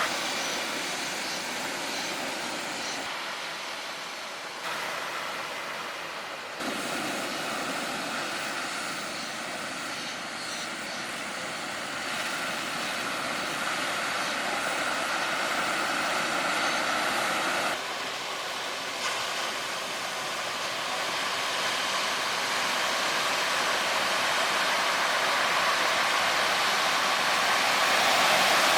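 Steady noisy roar of breaking ocean surf, with abrupt changes in level at several points.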